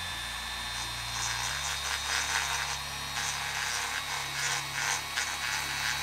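Handheld rotary tool grinding metal off a blade of a small turbine rotor to balance it, removing material from the heavy spot. A steady high whine from the tool, with rasping grinding that swells and fades as the bit bears on the blade.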